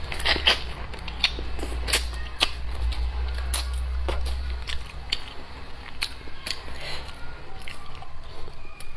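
Close-miked eating: biting and chewing fried fish, with many short, sharp crunches and mouth clicks. A low hum underneath stops about four and a half seconds in.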